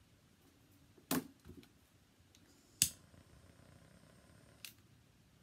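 Handheld butane torch lighter being fired: a sharp click of the igniter, then a faint steady jet hiss for about two seconds that ends with a smaller click as it shuts off, used to melt cut paracord ends. A knock from handling on the desk comes about a second in.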